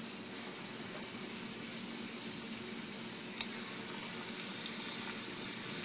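Fenugreek-and-gram-flour fritter batter (methi gota pakora) deep-frying in hot oil: a steady sizzle with a few sharp pops.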